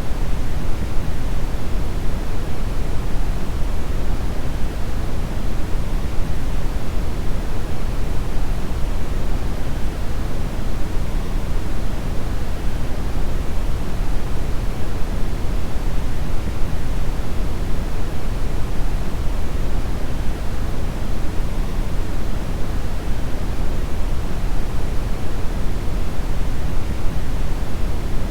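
Brown noise: a steady, deep rushing hiss, heaviest in the low rumble and thinning toward the treble, with no change over time.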